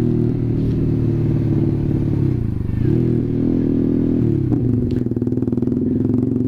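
Honda CBR150R single-cylinder engine running through an SC Project aftermarket exhaust, held at raised revs with a brief dip and recovery in pitch about halfway in, then dropping back to idle with a steady, distinct exhaust pulse.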